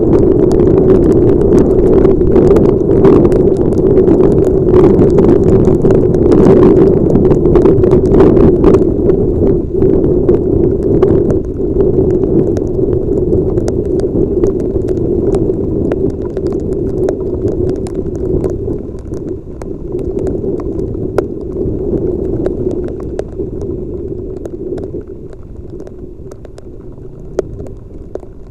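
Wind and rain noise on a helmet-mounted camera of a motorcycle riding through heavy rain, a steady rushing hum with many sharp taps, thickest in the first half. The noise slowly falls in level over the last third.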